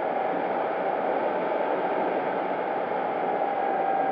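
Wind rush and propeller noise heard from the onboard camera of an electric FMS P-40B Tomahawk RC warbird in flight, with a steady electric-motor whine that grows louder near the end.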